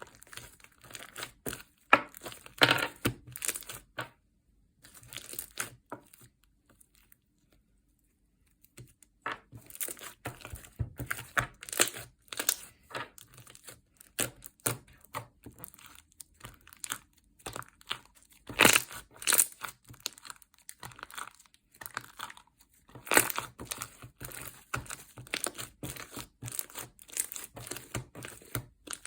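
Slime being squished, pressed and stretched by hand, making runs of crackling, crinkling clicks and pops. There is a near-silent pause about five seconds in, and the clicking starts again around nine seconds.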